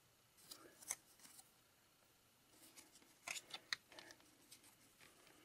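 Faint handling of stiff cardboard baseball cards: a few soft clicks and rustles about a second in, then a quicker cluster of sharp clicks about three to four seconds in as cards are slid and set down on the stack.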